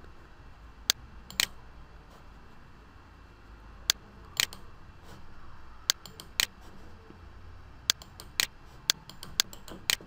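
Computer mouse button clicking, about eleven sharp clicks, mostly in pairs about half a second apart, over a faint low hum.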